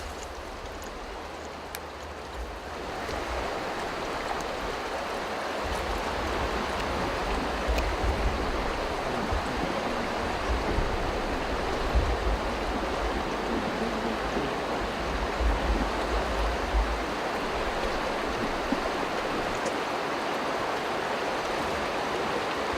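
Steady rushing outdoor noise with uneven low rumbles of wind buffeting the microphone.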